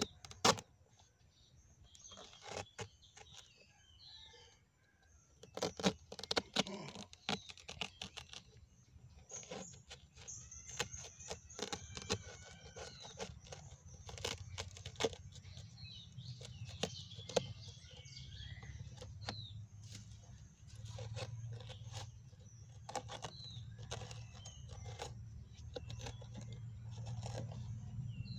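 A knife cutting and slitting a banana-plant stem, making scattered crisp clicks and snaps in short bursts. Birds chirp, and a low steady hum comes in partway through and grows louder toward the end.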